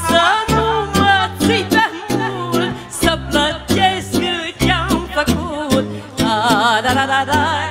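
Live Romanian folk dance music from a wedding band with keyboard: a wavering vibrato melody over a steady, bouncing bass beat.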